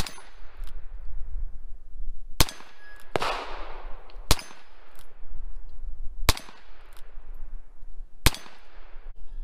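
Ruger New Vaquero single-action revolver firing .38 Special rounds: a string of six shots, most about two seconds apart, each trailing off in a short echo.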